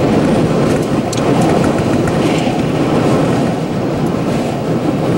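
Violent tornado inflow wind buffeting a storm-chase vehicle and its microphone: a loud, steady, low rushing rumble, with a few faint sharp ticks of things striking.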